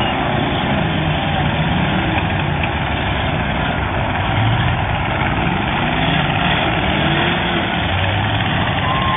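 Several demolition derby car engines running together in a loud, continuous din, their low tones rising and falling as drivers rev.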